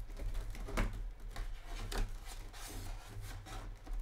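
Cardboard box being opened by hand: irregular rubbing, scraping and crinkling of the cardboard lid and flaps, with a few sharper taps.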